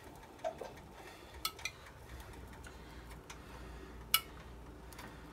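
A few light clinks and taps of a utensil against a dish and pan as tomato sauce is spread over breaded chicken cutlets, the sharpest clink about four seconds in, over a faint low hum.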